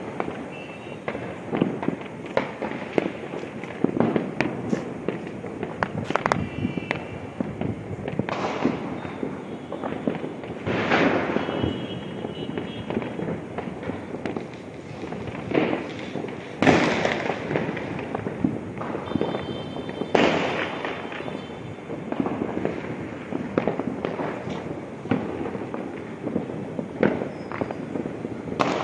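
Firecrackers and fireworks going off without pause: a dense, continuous crackle of many overlapping bangs, with a louder echoing blast every few seconds and a few brief high whistles.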